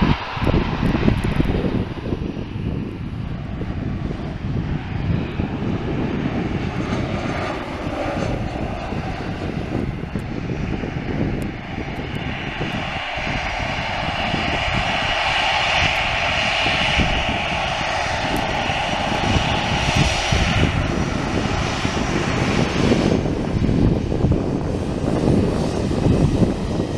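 British Airways Embraer E190 jet landing: jet engine noise over a steady low rumble. Around touchdown, about halfway through, the engine sound grows louder and steadier for several seconds, then eases off.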